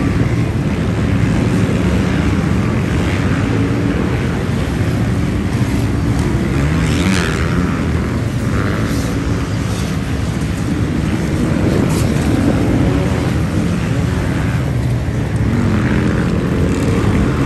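A field of off-road racing dirt bikes riding past at speed, several at once, their engines overlapping into a continuous sound with no gaps.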